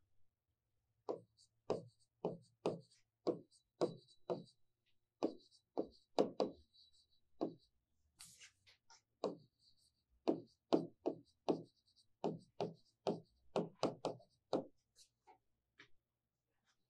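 Chalk writing on a blackboard: a run of short, sharp taps as each letter is struck, about two a second, with a faint high scratch between them. There is a brief pause about halfway through, and the taps thin out near the end.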